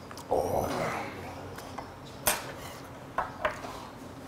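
Metal chopsticks clinking against a metal pot of budae-jjigae: one sharp clink about halfway through and two lighter ones about a second later. Just before them, near the start, comes a short noisy mouth sound from the eater.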